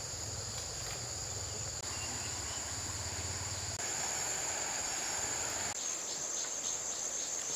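Steady, high-pitched chorus of insects, running on through cuts between shots. Under it is a low rumble for the first few seconds, then the rushing of a river from about four seconds in until nearly six seconds.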